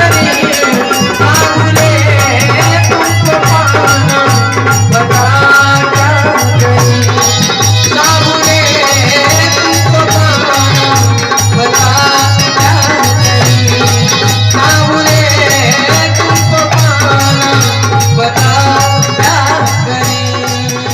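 Instrumental passage of a Hindi Krishna bhajan: a melody over a steady low drone and busy, rapid percussion. It begins to fade out near the end.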